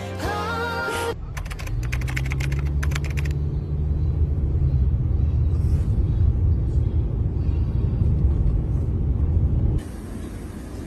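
A car driving, heard from inside the cabin: a steady low road and engine rumble. About a second in, a quick run of sharp clicks lasts for about two seconds.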